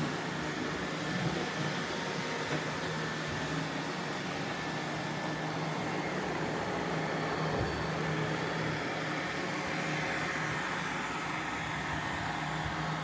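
Roomba robot vacuums running: a steady mechanical hum with a low, even drone.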